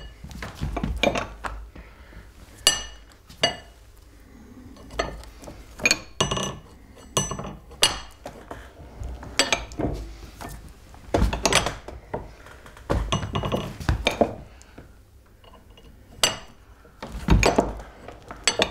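Hand-cranked wire-drawing bench working gold through a steel draw plate: a series of sharp metallic clinks and clunks with short ringing, irregular, about one or two a second, as the crank wheel is turned.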